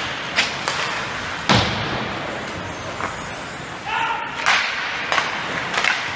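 Ice hockey play in an arena: sharp knocks of sticks and puck on the ice and boards, the loudest about one and a half seconds in, over the steady noise of the rink. A short shout comes about four seconds in.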